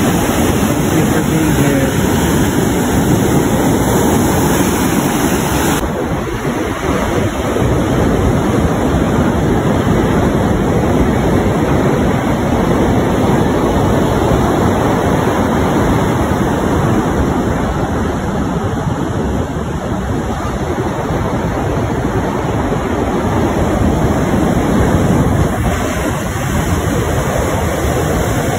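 Ocean surf breaking and washing up a sandy beach, a steady loud rush, with wind noise on the microphone.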